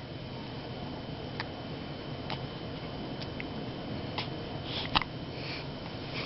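A small creature hiccuping: about half a dozen short, sharp clicks, roughly one a second at uneven spacing, the loudest about five seconds in with a brief breathy hiss.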